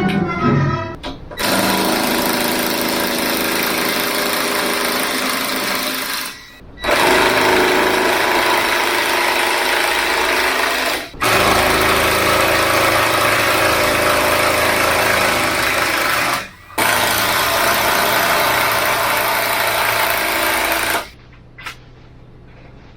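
A power tool running hard in four long runs of about four to five seconds each, with short pauses between them, then stopping.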